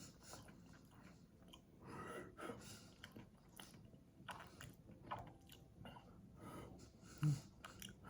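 Close-up chewing of a large Rice Krispie treat: irregular soft, sticky chewing noises in the mouth, with a single louder low thump about seven seconds in.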